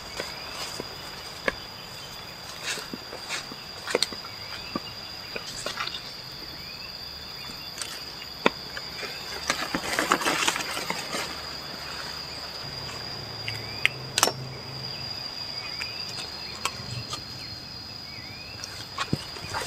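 A steady, high insect drone, with scattered clicks and rustling of leaves and stems as garden vegetables are picked and handled by hand; the rustling is thickest about ten seconds in.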